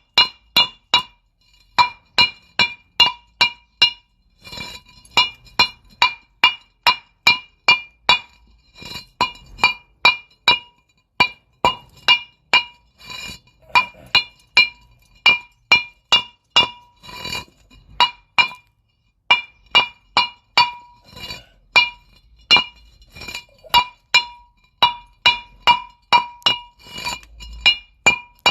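Hammer blows on the steel parts of a car's front brake and hub assembly, knocking off caked brake dust. The blows come in runs of about two to three a second with short pauses, and each strike rings.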